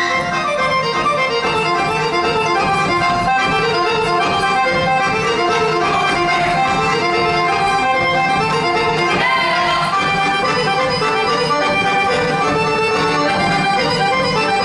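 Live Serbian traditional folk music led by accordion, with fiddle, playing a continuous tune at an even level.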